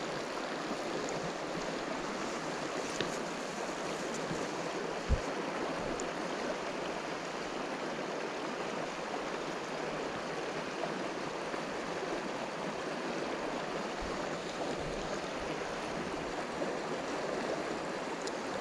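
Steady rushing of flowing river water, with one brief low thump about five seconds in.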